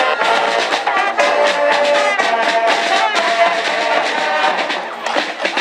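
Brass band playing a tune, with held brass notes over a steady beat.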